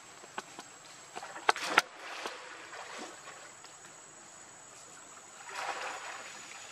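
Macaques swimming and paddling in pool water, with soft lapping and sloshing. A couple of sharp splashy slaps about a second and a half in, and a brief wash of splashing near the end.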